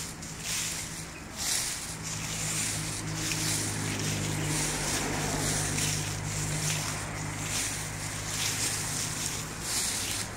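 A motor vehicle's engine running with a steady low hum, starting about a second and a half in. A rushing hiss of wind or passing traffic swells and fades over it.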